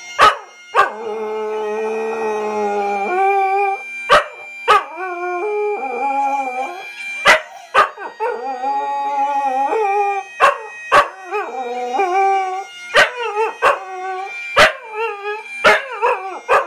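Scottish terrier howling along with music in long, wavering notes that rise and fall with the tune. About a dozen short, sharp sounds break in between the notes.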